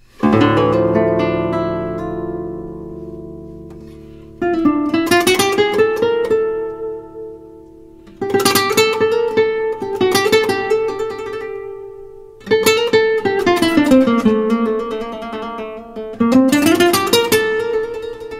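Instrumental background music on plucked acoustic guitar. A chord is struck at the start and left to ring and fade, then new phrases come in about every four seconds, with a melody that glides up and down in pitch.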